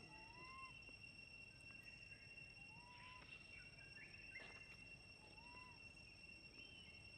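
A young macaque's soft crying coo calls: about three short whimpers, each rising then dipping slightly at the end, a couple of seconds apart.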